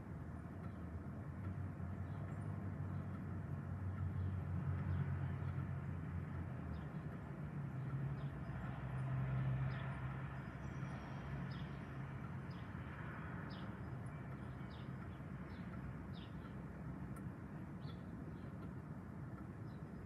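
Strong gusty wind blowing through trees, swelling twice, with a low engine hum from a vehicle in the first half. A few short high bird chirps come through in the second half.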